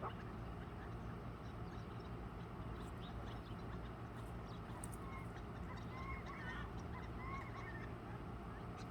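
Backyard poultry calling softly, with a few short warbling calls, mostly in the second half, over a steady low hum.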